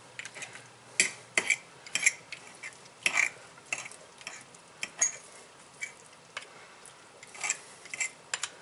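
A metal fork clinking and scraping against a plate as cooked chicken is pulled apart, held with plastic tongs. The clicks come irregularly, in quick clusters with short pauses between.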